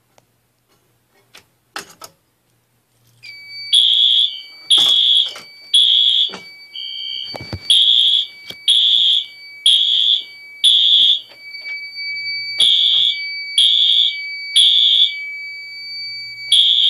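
Home fire alarm system going off during a system test: after about three seconds of near quiet, the alarm sounders start a loud beeping about once a second, mostly in groups of three with a short pause between groups, over a steady high tone.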